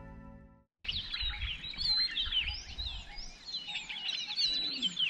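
Background music fades out, then, about a second in, a chorus of many wild birds starts up, chirping and whistling over one another, with a faint low rumble underneath.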